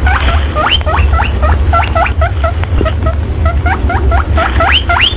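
Baby rabbits squeaking: a continuous run of short squeaks that rise in pitch, about three a second, over a steady low rumble.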